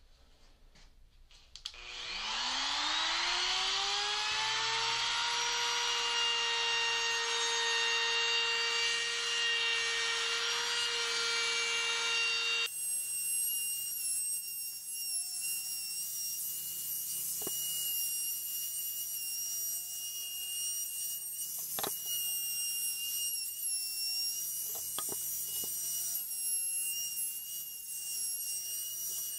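RIDGID compact router with a 1/4-inch roundover bit starting up about two seconds in, its whine rising quickly to full speed, then running steadily as it rounds over the edges of a maple board. The sound changes abruptly about a third of the way in and carries on with a steady high whine and a few sharp ticks.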